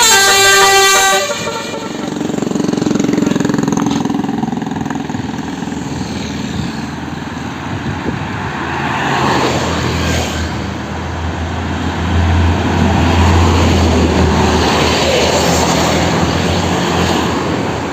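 Basuri-type multi-tone telolet bus horn playing a stepped melody that stops about a second in. A large bus engine and road noise follow, the low engine rumble swelling in the latter half as the bus passes.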